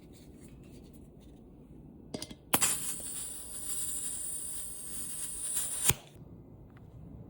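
A sharp click, then a steady high hiss of pressurised gas for about three and a half seconds, cut off by another click. This is typical of green gas being charged into a gas-blowback pistol magazine.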